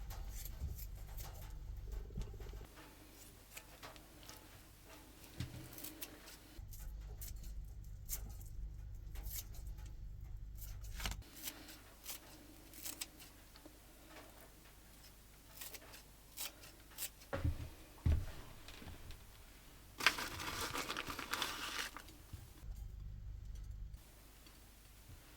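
Handling noises: scattered clicks and knocks, with a rustling, tearing sound of about two seconds near the end.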